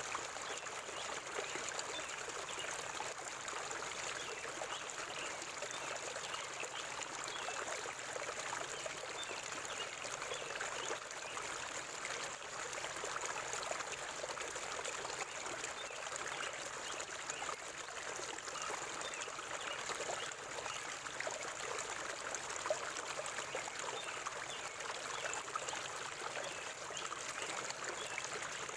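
River water flowing steadily, an even, unbroken rush of water.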